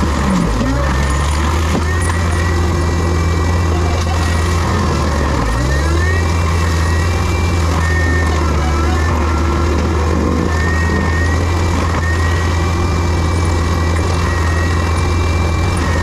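Heavy diesel equipment running hard and steady, with a whine over the engine that rises and falls. The engine note sags briefly under load near the start and again about five seconds in.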